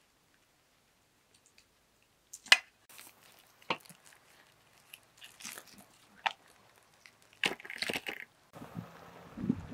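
Knife cutting up a raw whole chicken in a metal bowl: scattered crunches and sharp clicks as the blade works through skin and joints, the loudest about two and a half seconds in. Near the end a steady hiss comes in.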